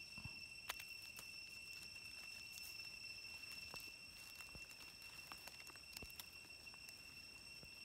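Quiet forest ambience: a steady high insect tone hangs in the background, with a few faint clicks as hands work in dry leaf litter.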